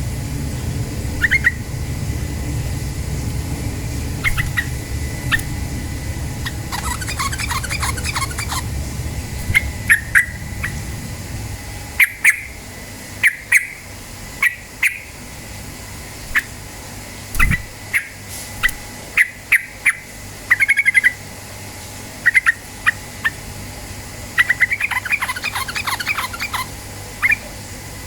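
Yellow-vented bulbul calling: short, sharp single notes scattered throughout, broken twice by a fast rattling chatter, about seven seconds in and again near the end. A low steady rumble runs under the first half.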